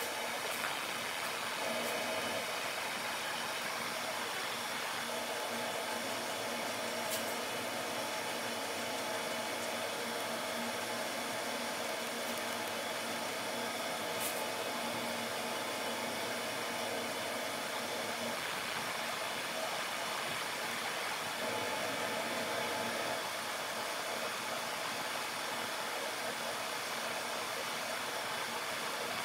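Pet grooming dryer blowing steadily with an even, unchanging rush of air.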